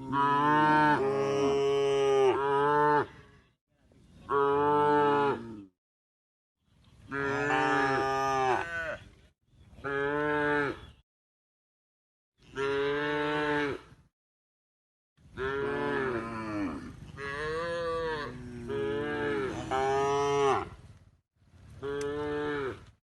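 Cows mooing: a series of about seven separate moos, each lasting one to three seconds, with short silent gaps between them.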